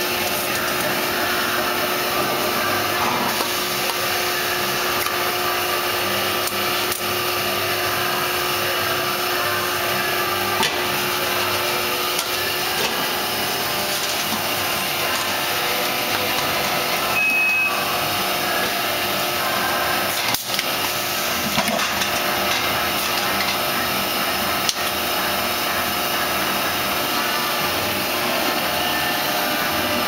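Steady machinery noise of a pail-filling line, the net-weight filler and conveyors running. Occasional clicks and knocks, and a short beep about seventeen seconds in.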